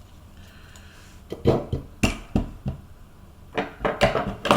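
Hard objects clicking and clattering on a tabletop as they are felt for and handled, about seven sharp knocks beginning about a second and a half in.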